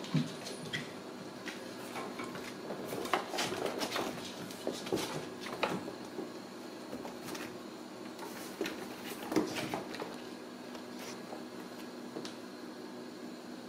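Ragdoll kittens playing on a tile floor around cardboard scratchers in plastic trays: scattered light clicks, scrapes and knocks at irregular moments, over a steady faint hum.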